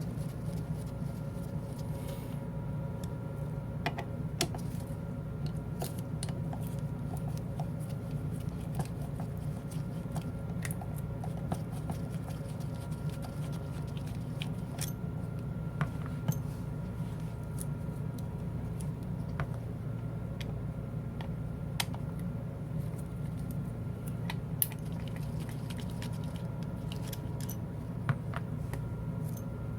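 Scattered sharp clicks and light clinks of small metal parts and tools as a crane limit switch's bottom cover is opened and its return spring taken out, over a steady low hum.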